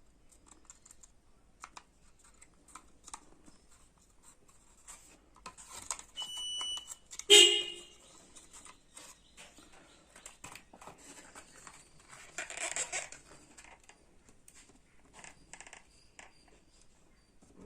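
Small clicks and taps of hand tools being handled at a circuit board during a relay replacement, with a brief steady beep about six seconds in and one loud sharp snap about a second later, then a short rushing noise around the middle.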